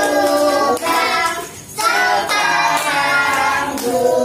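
A group of women and children singing a birthday song together, with hands clapping along; the singing breaks off briefly about a second and a half in.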